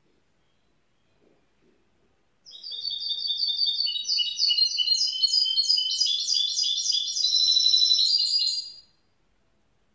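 Young goldfinch mule (goldfinch–canary hybrid) singing one phrase of about six seconds: a fast run of repeated high chirping notes that starts about two and a half seconds in and stops sharply near the end.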